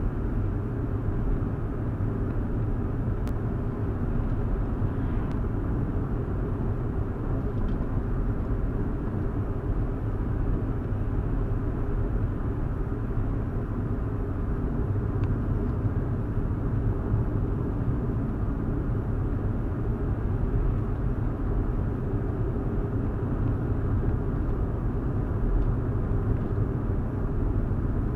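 2015 Hyundai i20 driving at a steady pace, heard from inside the cabin through a dashcam: a constant low rumble of engine and tyre road noise.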